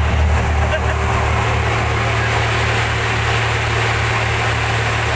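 A fishing trawler's engine running steadily with a constant low hum and a wash of noise above it.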